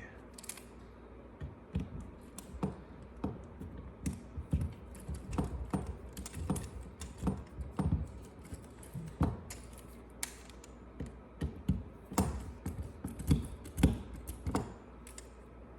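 Irregular small clicks and taps of hard parts being handled and fitted as an HDB68 marker is put back together, with the loudest knocks in the last few seconds.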